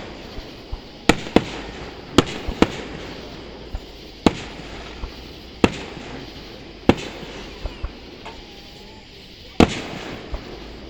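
Fireworks display going off: about eight loud, sharp booms at irregular gaps of one to three seconds. Smaller pops and a continuous crackling haze fill the gaps between them.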